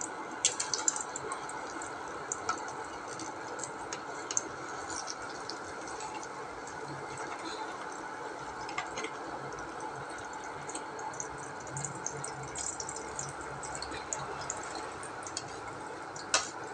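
Egg frying in hot oil in a pan: a steady sizzle full of small crackles and pops, with a few louder clicks, one about half a second in and one near the end.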